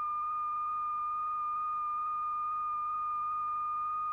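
A steady, unwavering high-pitched tone with a fainter overtone an octave above: the continuous sine-like tone that drives a cymatics diaphragm and sets the lycopodium powder on it flowing and rotating.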